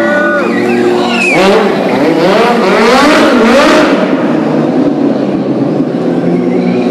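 Stunt motorcycle engine revving up and down over and over as the bike is held on one wheel, the revving loudest between about one and four seconds in.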